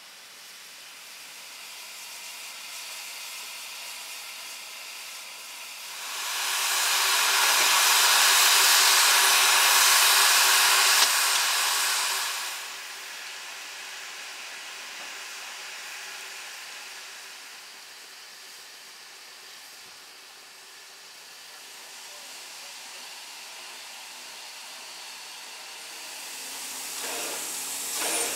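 A standing Victorian Railways D3-class steam locomotive hissing steam. About six seconds in, a much louder blast of steam starts and lasts about six seconds before it dies back to the steady hiss. A few faint knocks come near the end.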